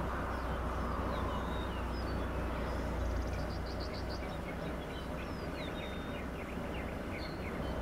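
Several birds chirping and singing, short calls and a quick trill, over a steady low rumble.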